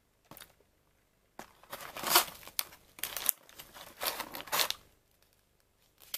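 Paper tea-bag sachet crinkling as it is pulled out of an opened cardboard tea box and handled. A brief rustle comes first, then a few seconds of crinkling, then a short rustle near the end.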